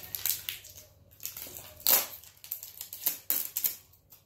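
Plastic wrapper being peeled and unwound from a plastic toy ball, crinkling and crackling in irregular bursts, loudest about two seconds in.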